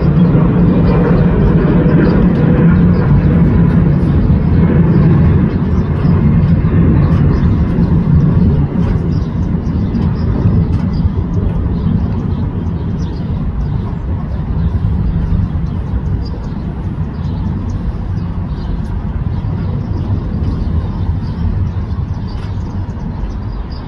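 Tour boat's engine droning as the boat passes below, a steady low rumble that eases slightly after about eight seconds.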